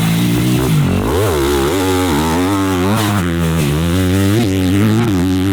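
Motocross dirt bike engine being ridden hard, its pitch rising and falling over and over as the throttle is opened and closed through the gears.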